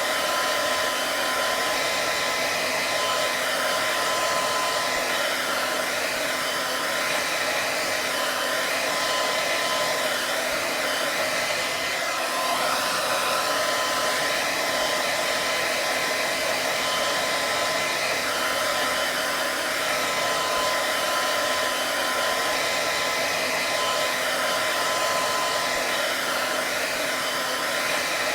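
Electric hair dryer running continuously: a steady, even rush of air with a constant motor whine over it.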